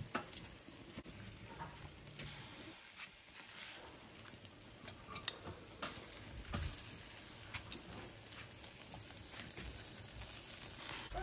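Chicken and sausages sizzling faintly on a charcoal kettle grill, with scattered crackles and pops and a few clicks of metal tongs on the grate.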